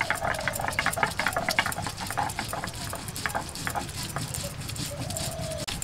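Stone roller rubbed back and forth on a flat stone grinding slab (shil-nora), grinding soaked dried red chillies and cumin into a paste: a rapid run of scraping, knocking strokes. A short animal call is heard about five seconds in.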